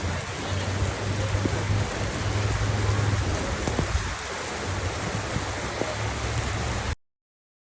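Heavy rain pouring down steadily, with a low rumble underneath. The sound cuts off suddenly near the end.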